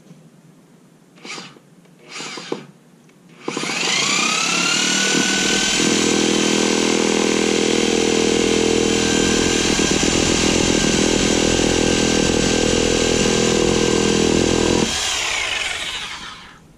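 Corded reciprocating saw cutting through the top of a 4x4 wooden deck post. The motor spins up with a rising whine about three seconds in, saws steadily for about eleven seconds, then winds down.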